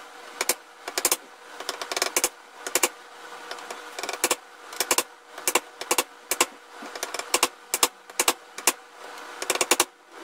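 A hand tool worked against the metal hinge pins of a wooden easel leg: sharp metallic clicks and taps in quick irregular clusters of two to four, about every half second.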